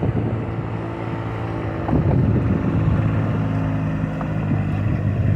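A steady engine drone, a low hum with evenly spaced overtones, with wind buffeting the microphone.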